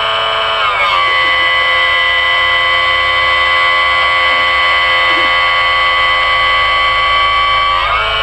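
A steady, buzzy electronic tone rich in overtones, which slides down in pitch about a second in and glides back up near the end, over a low hum.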